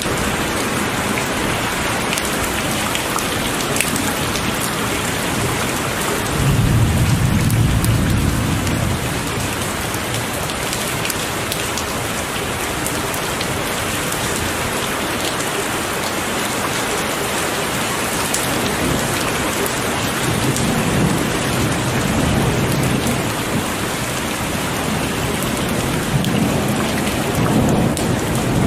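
Heavy rain falling steadily, with rolls of thunder rumbling low: one swell about a quarter of the way in and more rolls in the last third.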